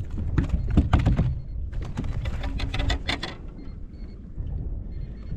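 Baitcasting fishing reel being cranked hard while a bass is reeled to the boat: a rapid clicking rattle in two spells over the first three seconds or so.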